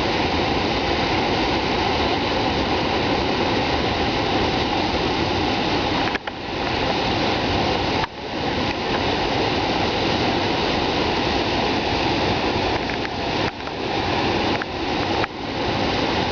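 The Manavgat waterfall: a steady, loud rush of falling water. It cuts out briefly a few times.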